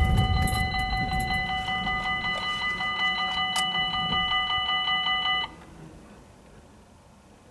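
Level crossing warning bell ringing in rapid, even strokes while the half barriers lower, signalling an approaching train, with one sharp click about halfway through. The bell cuts off suddenly about two-thirds of the way through, as the barriers come fully down.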